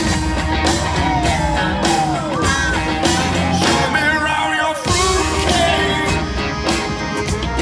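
Live rock band playing full out: a steady drum beat, bass, guitar and a singing voice. Several long notes slide down in pitch.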